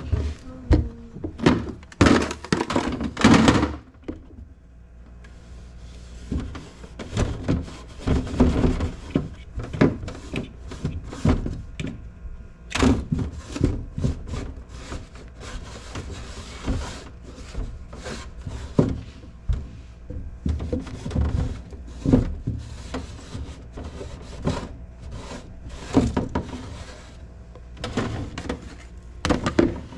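Irregular thunks and clatters of containers, shelves and drawers being taken out and handled during refrigerator cleaning, with some stretches of rubbing or rustling between the knocks.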